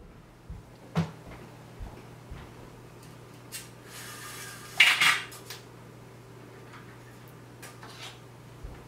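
Horizontal window blinds being lowered: the slats rattle and clatter down about four to five seconds in, the loudest sound. Before it come a sharp knock about a second in and a few soft thumps, over a steady low hum.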